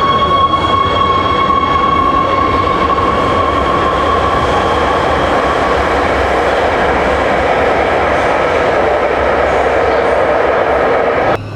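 A Hohhot Metro Line 2 train pulling out of the station: a steady high electric whine fades away about halfway through, under the continuous rushing rumble of the train running out. The sound cuts off suddenly near the end.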